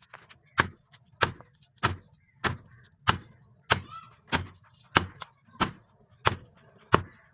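Hammer striking leaf-spring steel on an anvil in a steady rhythm, about eleven blows at roughly one and a half a second, each with a short metallic ring.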